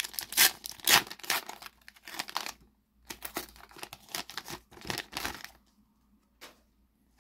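A Panini FIFA 365 2025 card pack's plastic foil wrapper being torn open and pulled apart by hand, in a run of sharp rips and crinkling rustles that stop about five and a half seconds in.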